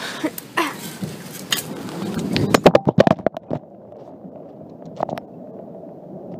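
A mobile phone being dropped: rustling handling noise, then a quick clatter of several sharp knocks as it hits and tumbles, the loudest sounds here. After it a steady hiss of rain carries on.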